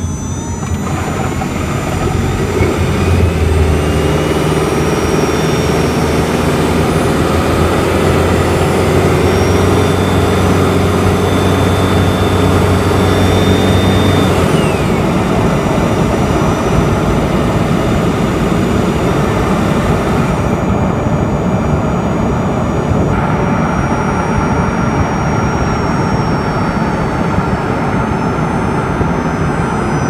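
Honda Step WGN e:HEV (i-MMD) hybrid drivetrain heard from the engine bay. The electric drive motor's whine rises as the van pulls away. About two seconds in, the petrol engine starts and runs at a steady speed while the van gathers pace, then stops about halfway through. After that the electric drive carries on quietly under steady road noise.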